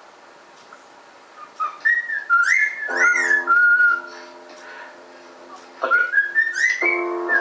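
A cockatiel whistling a tune in short rising and falling notes, beginning about a second and a half in. Held chords of music come in under the whistling about three seconds in and again near six seconds.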